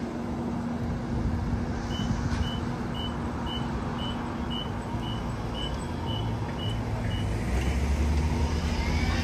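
Inekon Trio streetcar stopped at a platform, its warning beeper sounding about a dozen even high beeps, roughly two a second, over the car's steady electrical hum. A low rumble builds near the end.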